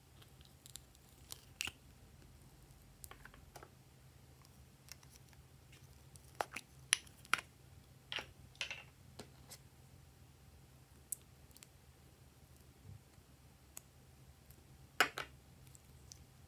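Scattered sharp clicks and taps of small plastic makeup containers being opened and handled, the loudest a few clicks about seven seconds in and one near the end.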